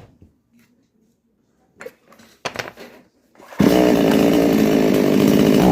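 Two-stroke chainsaw engine run up on the throttle for about two seconds, starting abruptly and cutting off sharply, as a test of throttle response after the low-speed (L) carburettor screw is turned out to richen the mixture. A few short knocks come before it.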